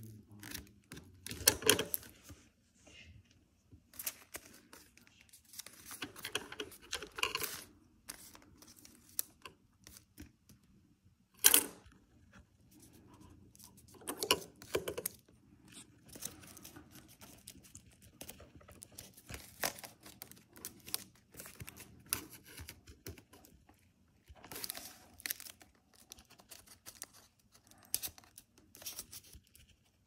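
Strips of paper being folded, creased and handled, with irregular rustles and scattered sharp clicks, the sharpest about eleven seconds in.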